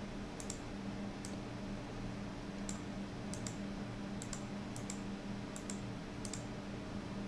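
Computer mouse clicking about a dozen times at irregular intervals while menu items are picked, over a steady low hum.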